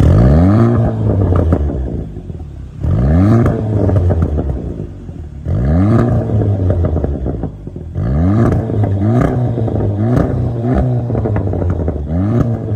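Audi TT Mk3 engine revved through a T1 valved cat-back exhaust with the valves open: four sharp blips a few seconds apart, each rising and falling, then a quicker string of short blips in the last few seconds, with crackles as the revs drop.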